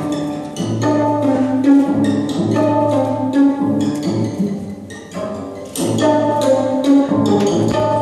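Recorded orchestral music with bowed strings over a low held bass line and frequent percussive accents, accompanying a ballet solo. It falls away briefly about four to five seconds in, then comes back in full.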